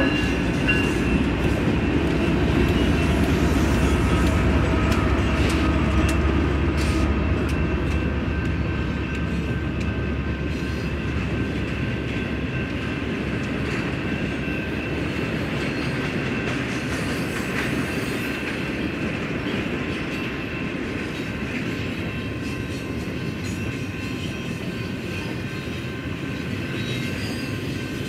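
GE ES44DC diesel locomotive passing with its engine rumbling, then double-stack intermodal cars rolling by: a steady noise of steel wheels on rail with a few sharp clicks. The engine rumble fades over the first several seconds as the locomotive draws away, and the whole sound slowly gets quieter.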